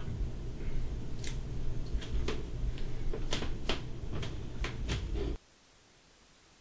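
Low steady room noise with a scattering of sharp clicks and taps, about eight in all. It cuts off abruptly about five seconds in, leaving near silence.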